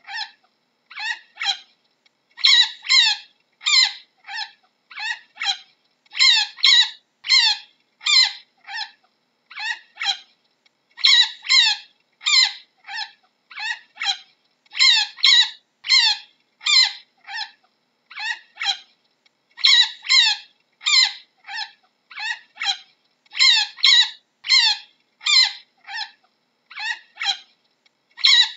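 Chinchilla giving a long series of short, high-pitched squeaking calls, mostly in quick pairs and threes, about two a second with brief pauses between groups.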